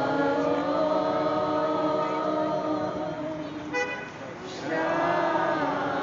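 A crowd singing together in long held notes. A brief horn toot sounds about halfway through, and the singing drops off for a moment before picking up again.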